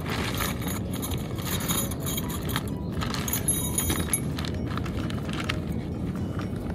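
Metal tent stakes clinking and jingling in a small bag as they are handled, a run of light irregular clicks with brief metallic rings, over a steady low rush.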